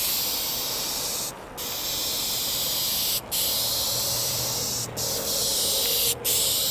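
Aerosol can of Dupli-Color Perfect Match spray paint spraying a color coat onto a car hood. A steady hiss comes in passes, broken by four brief gaps where the nozzle is released.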